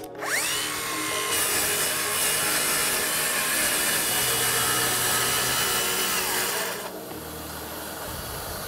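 Festool HKC55 18V cordless circular saw spinning up with a rising whine, then plunging into a chipboard panel and cutting along its guide rail for about six and a half seconds. Its motor winds down just before the cut noise stops.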